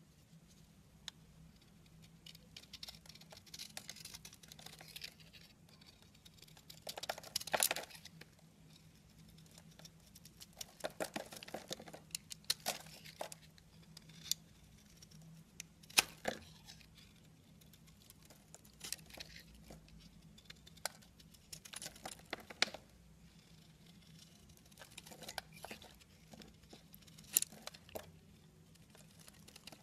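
Utility-knife blade carving and shaving a hard bar of soap: irregular crunchy scraping strokes with crackles as flakes break off, and a few louder snaps, the loudest about halfway through.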